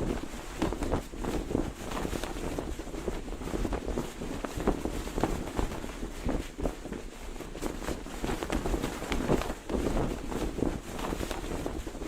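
Cloth flag flapping in the wind, fluttering and snapping in quick, uneven pulses, with wind rumbling on the microphone underneath.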